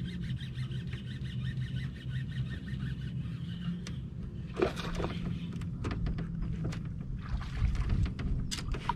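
A small fishing boat's motor hums steadily for the first half. A few sharp knocks sound on the boat about halfway through, and more come near the end.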